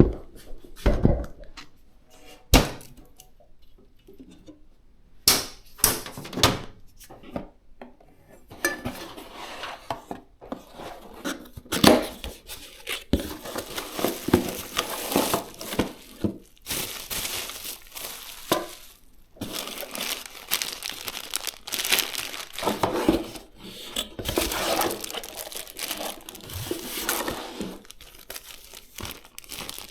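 Packaging being handled: a few sharp clicks and knocks, then long stretches of crinkling and rustling with short pauses, as in plastic wrapping or an anti-static bag being opened and pulled off a part.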